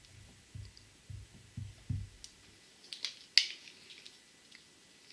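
A marker writing on a whiteboard, with soft low thumps at an uneven pace as the pen strokes against the board. From about three seconds in come a few sharp plastic clicks as several markers are handled together; the loudest click is about three and a half seconds in.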